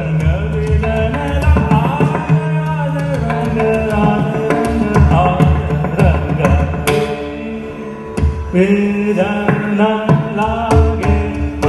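Dhrupad singing in Raag Shree: a male voice sings over a steady tanpura drone, with repeated pakhawaj drum strokes. The voice drops out briefly about eight seconds in, then resumes.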